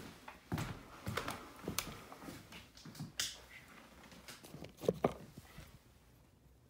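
Faint, irregular footsteps and knocks on a wooden floor, then a couple of louder bumps and rubbing as the phone is handled and picked up.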